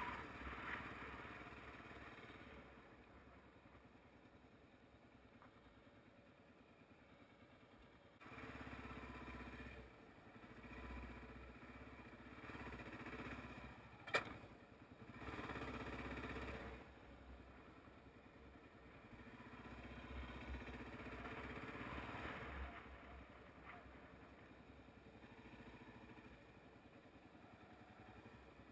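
Motorcycle engine running at low revs as the bike picks its way over a rough gravel track, swelling and easing with the throttle. One sharp knock about fourteen seconds in.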